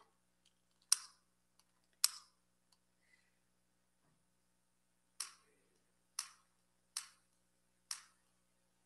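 Six sharp, short clicks, two about a second apart near the start and then four more at roughly one a second, over a faint steady hum.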